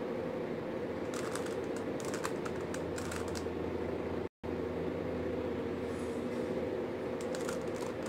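A 3x3 Rubik's cube being turned by hand: clusters of light plastic clicks from its layers turning, from about a second in until past the middle and again near the end, over a steady low hum. The sound drops out for an instant just past the middle.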